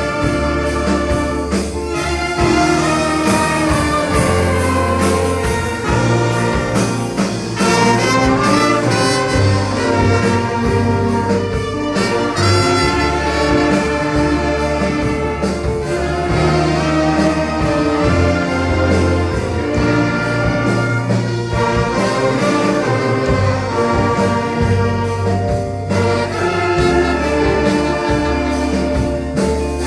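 A church orchestra playing continuously, with brass to the fore over a steady bass.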